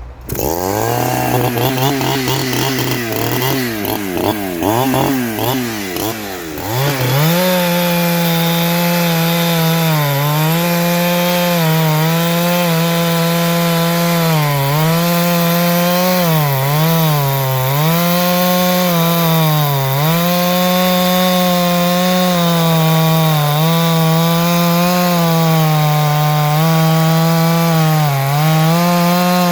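Farmertec G372XT two-stroke chainsaw running: it comes in at the start with the revs wandering up and down for several seconds, then is held at high revs with repeated brief dips in pitch every couple of seconds.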